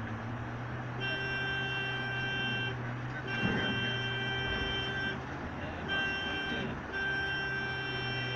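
Volvo B7R coach's six-cylinder diesel engine droning steadily, heard from inside the cabin, under four long blasts of a multi-tone horn. The last blast is held for about three seconds. A single low thump comes a little before the middle.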